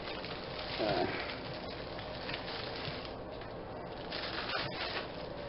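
Plastic grocery bags rustling and crinkling as they are handled on a table, over a steady background hiss, with a short low sound about a second in.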